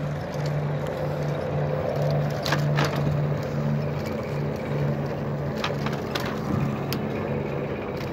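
Dahon folding bicycle rolling over a concrete road deck: a steady tyre rumble with a low hum, and a few sharp rattling clicks from the bike, two close together about two and a half seconds in and more later on.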